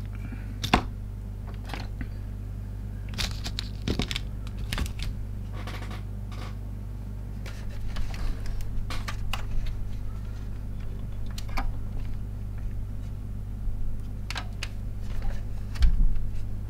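Scattered clicks, taps and light rustles of small tools and items being handled, with a louder knock near the end, over a steady low electrical hum.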